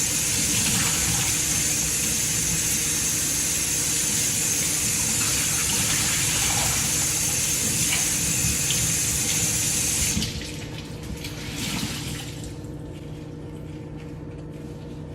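Water running from a tap as a cleaning towel is rinsed out under it, a steady rush. The tap is shut off about ten seconds in, leaving quieter water sounds.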